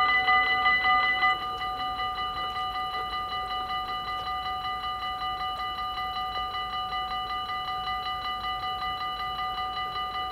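Dutch level crossing warning bells ringing in a rapid, even, metallic ding-ding while the red lights flash, warning of an approaching train. The ringing drops to a quieter level about a second and a half in, as the barrier arm comes down.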